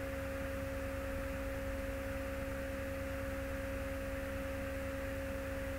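Steady electrical hum in the recording: two constant tones, one higher and one lower, over a low hum and faint hiss, with no other sound.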